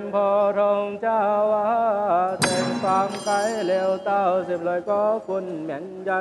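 A male monk chanting a melodic Chinese Buddhist liturgy, with a steady low drone underneath. A small ritual bell is struck once about two and a half seconds in and rings on.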